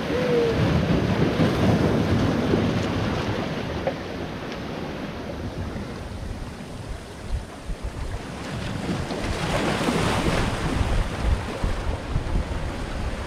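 Sea swell washing and breaking against shoreline rocks, rising and falling: louder in the first few seconds, easing off mid-way, and surging again from about nine seconds. Wind buffets the microphone with a low rumble.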